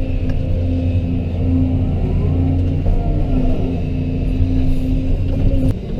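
Excavator's diesel engine running steadily under work, with a brief dip in its sound near the end.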